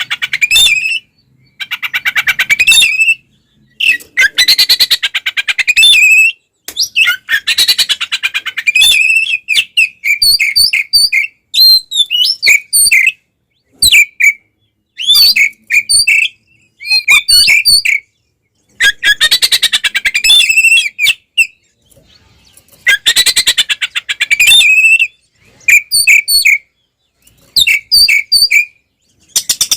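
Oriental magpie-robin (kacer) singing loudly in its aggressive fighting style. Bursts of rapid, harsh rattling trills a second or two long alternate with short clear whistles and chirps, with brief silent gaps between phrases.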